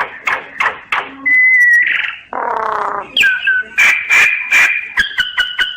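Common myna singing: a varied run of sharp clicks and whistled notes, a harsh grating note about halfway, then a fast string of clicks over held whistles near the end.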